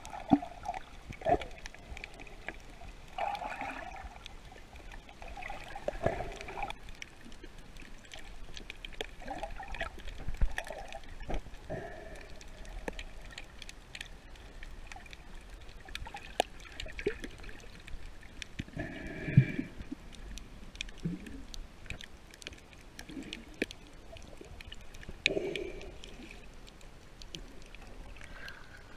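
Muffled underwater sound heard through a submerged camera: irregular water gurgling and sloshing with scattered small clicks.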